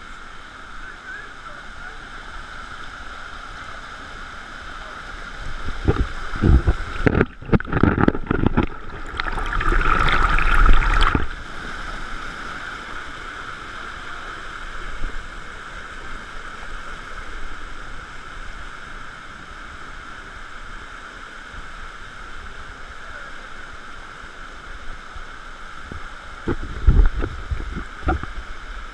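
Steady rush of water from a canyon stream. Two spells of loud low thumping and rumbling break in, about six to eleven seconds in and again near the end.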